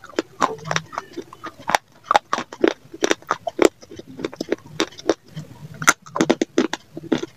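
Close-up crunching and chewing of hard clay pipe pieces in the mouth, with irregular crisp crunches several times a second.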